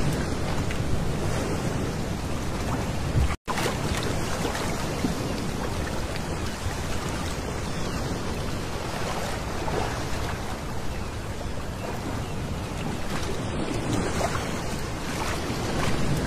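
Small waves washing onto a pebble beach, a steady wash of surf. The sound cuts out for an instant a little over three seconds in.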